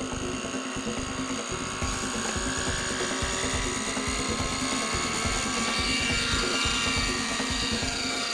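JR Vibe 50 NEX radio-controlled model helicopter spooling up on the ground, its engine and rotor whine rising slowly in pitch, then lifting off into a low hover near the end.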